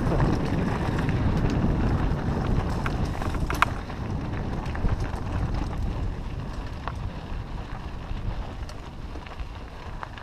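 Wind buffeting an action camera's microphone while a mountain bike rolls along a rocky dirt singletrack, with the rumble and rattle of the ride and a few sharp clicks. Louder for the first few seconds, then easing off.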